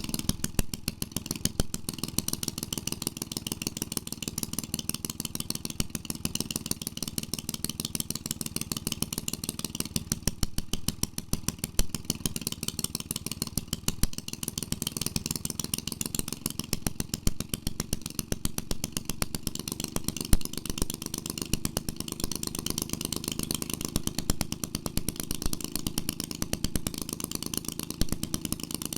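1946 Maytag Model 72 twin-cylinder two-stroke engine running steadily with no exhaust fitted, giving a rapid, even firing beat with an occasional louder pop.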